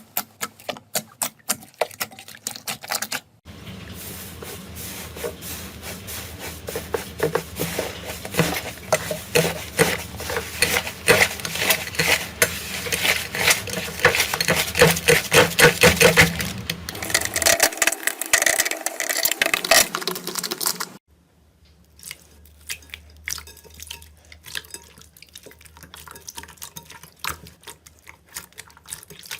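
Slime being worked by hand, giving quick runs of wet, sticky clicks and pops. The sound changes abruptly twice, about three seconds in and about two-thirds through, as one clip gives way to the next.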